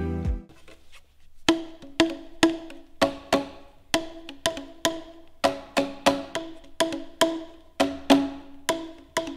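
Boomwhackers, tuned plastic percussion tubes, struck in a steady rhythm about two or three times a second, starting about a second and a half in. Each stroke is a short hollow pitched knock, the two tubes alternating between two notes.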